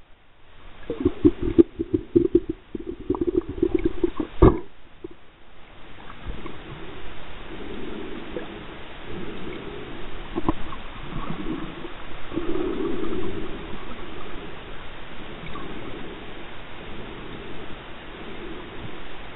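Muffled underwater noise heard through a camera's waterproof housing: water moving and burbling around the housing as it is carried along. The first few seconds are rapid rough pulses, ending in a sharp knock, likely the housing or a hand striking rock. After that a steadier swishing rises and falls in slow swells.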